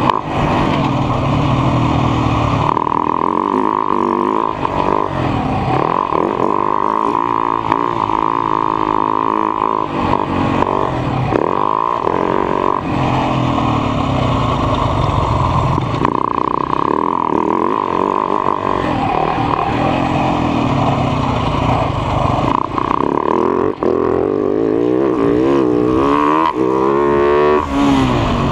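Husaberg FS 570 supermoto's single-cylinder four-stroke engine heard from on board while riding, its pitch rising and falling again and again as the throttle is opened and closed.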